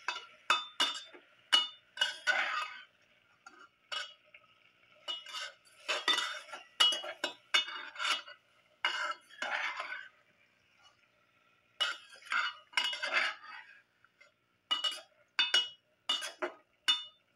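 A metal spoon stirring chunks of fish and onion in a cooking pot, in irregular strokes that scrape and clink against the pot's sides and bottom.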